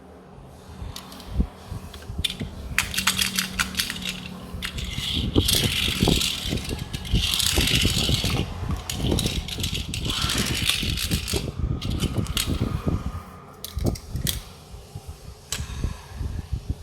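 Toy-car packaging being handled and opened: bouts of crinkling and rustling, with many small clicks and rattles.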